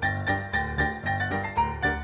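Background music: a keyboard tune with notes struck about four a second.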